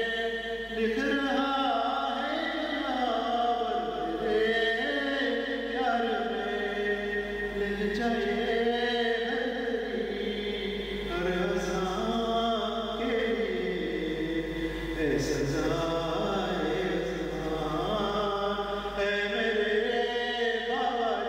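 A man's voice reciting a marthiya, an Urdu elegy, in a slow melodic chant, holding and bending long notes without pause.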